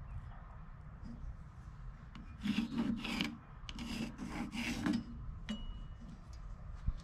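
Pencil scratching along a steel rule across the face of a rough-sawn wooden blank, in two strokes of about a second each, a little before and after the middle.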